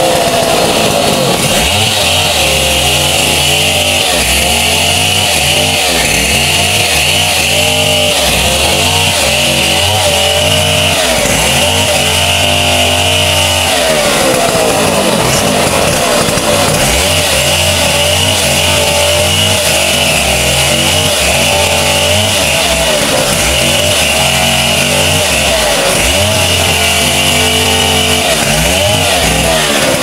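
Large two-stroke chainsaw running at full throttle while cutting a coconut palm trunk into rounds; the engine pitch repeatedly sags as the chain bites into the wood and rises again between cuts.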